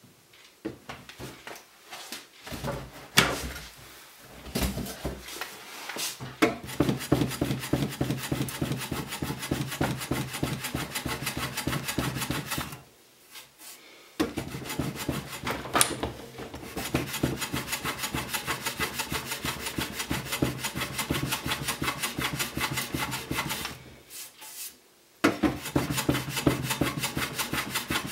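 Metal hand plane scraping along the edge of a wooden frame: a few separate strokes at first, then long runs of quick, closely spaced scraping strokes, stopping briefly twice.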